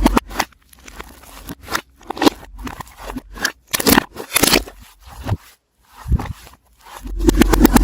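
Slime being squeezed and pressed, played in reverse: sticky crackling clicks and pops, with a fast run of clicks swelling near the end.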